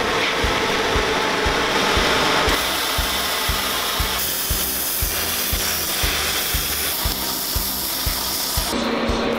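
Oxy-acetylene welding torch flame hissing, its tone shifting as the shots change, over background music with a steady beat of about two a second.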